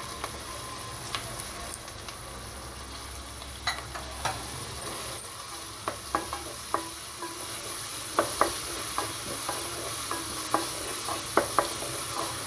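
Diced carrots, onions and garlic sizzling in hot oil in an aluminium pot. A wooden spatula stirs them, scraping and knocking against the metal sides in short clicks, several a second in the second half.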